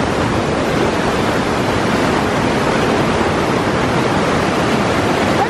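Creek water rushing over rocks in small cascades, a steady even rush.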